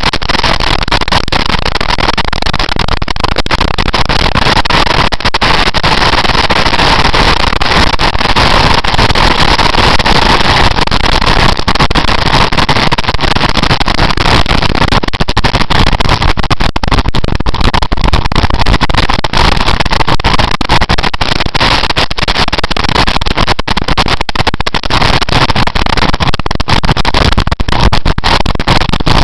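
Steady, loud wind noise buffeting the microphone of a camera on a motorcycle riding at speed, with road and engine noise buried under it.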